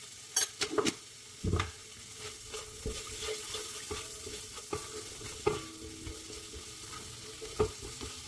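Shrimp frying in garlic butter in a wok, a steady sizzle, while a spatula stirs and scrapes them around the pan. Several sharp knocks of the spatula against the wok, a quick cluster about half a second in and single ones later.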